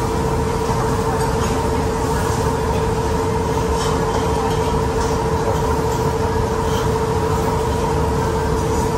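A steady mechanical hum with a constant pitched tone, unchanging throughout. Faint light clinks of cutlery on metal plates come through now and then.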